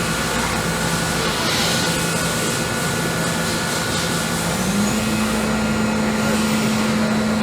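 Kitamura Mycenter-1XiF vertical machining center running, with a steady whine that steps up in pitch about two-thirds of the way through, over a constant wash of machine noise. There is a brief hiss about a second and a half in.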